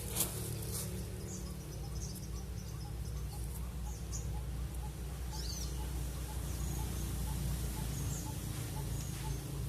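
Small wild birds chirping, with short high chirps scattered through and a soft lower note repeating about twice a second. A sharp click sounds just after the start over a steady low rumble.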